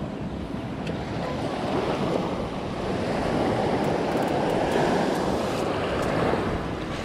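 Small waves washing up onto a sandy beach at the shoreline, a steady surf rush that swells a little past the middle, with wind buffeting the microphone.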